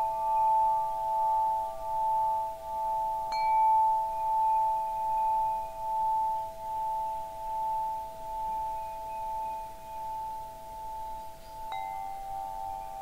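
Metal tube wind chime ringing. The tubes are struck again about three seconds in and near the end, and a few clear tones linger and swell and fade in a slow pulse.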